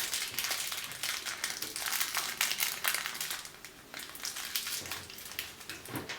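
Plastic outlet cover plate being handled and fitted over a new GFCI outlet: a dense run of small crinkles and scratchy clicks, easing off briefly near the middle.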